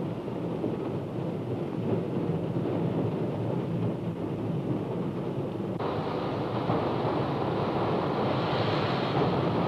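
Steam locomotive hauling a passenger train, heard as a steady rushing rumble with no distinct beat. About six seconds in, the sound changes abruptly to a brighter, slightly louder rush as the train rolls in.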